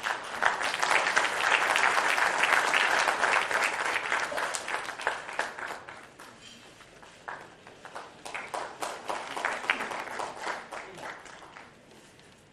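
Audience applauding. It breaks out suddenly, dies down after about five seconds, rises again for a few seconds, then fades out near the end.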